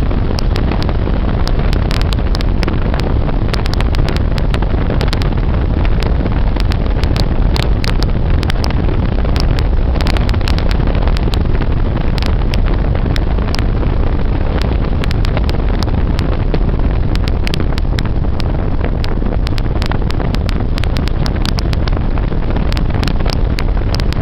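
Wind buffeting the microphone over the steady rumble of a moving road vehicle, with frequent short crackles.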